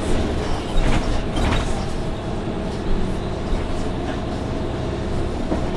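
Orion VII NG CNG transit bus heard from inside, its Cummins ISL-G natural-gas engine and Allison B-400R automatic transmission running with a steady low drone and a faint steady whine. A couple of short rattles come about a second in.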